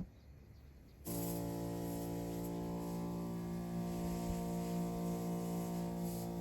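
A pesticide sprayer's motor pump switches on abruptly about a second in and runs with a steady, unchanging hum, over the hiss of spray.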